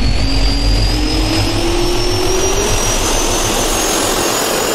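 Jet turbine engine sound effect spooling up: a loud, steady rush with a high whine and a lower hum both rising slowly in pitch, cutting off suddenly at the end.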